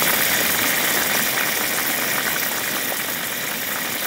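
Whole green chillies deep-frying in a large pot of hot oil: a steady, dense sizzle and crackle of bubbling oil.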